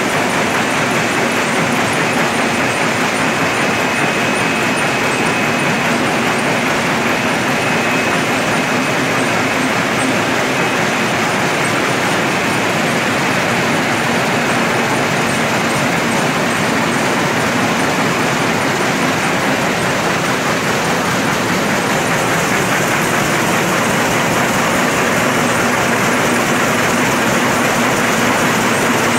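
A 13-metre-wide mono-yarn net making machine running at production speed: a loud, steady mechanical din.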